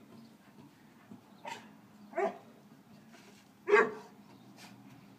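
A Boxador (boxer–Labrador mix) dog giving three short single barks, the loudest about three-quarters of the way through. These are play barks at a doormat it is battling.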